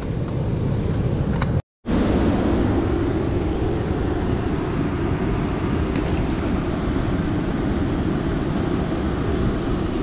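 Steady rush of turbulent river water churning against shoreline rocks, mixed with wind on the microphone. The sound cuts out for a moment a little under two seconds in.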